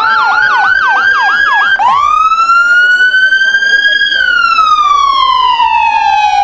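Ambulance siren, loud. It starts on a fast yelp, with a second, slower rising siren tone under it. About two seconds in it switches to a slow wail that rises for about two seconds, then falls slowly.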